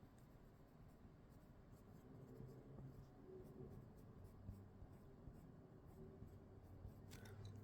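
Faint scratching strokes of a drawing tool colouring on paper, with a few light clicks near the end.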